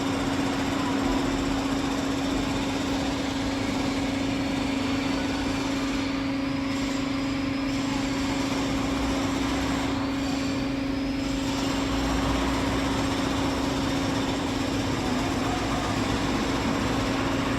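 Rafamet UBC 150 CNC wheel lathe running under power, giving a steady, even hum of one pitch over a constant machinery noise.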